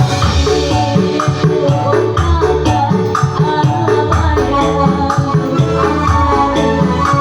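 Music with a steady beat, bass line and shaken percussion, the melody carried by an instrument rather than a clear voice.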